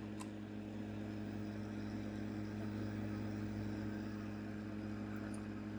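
Steady electrical hum with a buzz of several evenly spaced overtones from the powered-up open CRT monitor and computer, with one faint tick just after the start.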